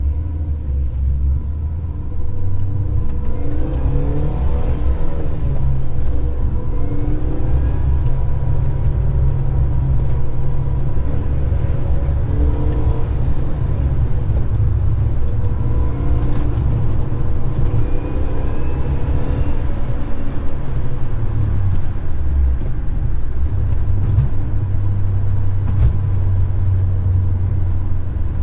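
Supercharged 1.6-litre four-cylinder engine of a 2005 Mini Cooper S (R53) driving on the road under a steady low rumble, its pitch rising several times as the car accelerates through the gears of its manual gearbox.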